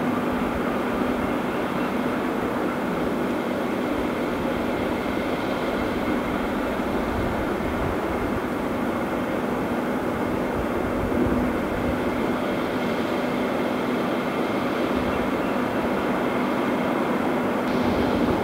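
Heavy diesel machinery running steadily, with a constant hum.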